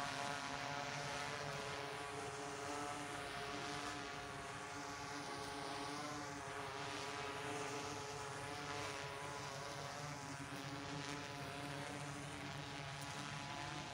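Steady motor drone with several held tones, unchanging throughout, and a hiss above it that slowly sweeps up and down in pitch.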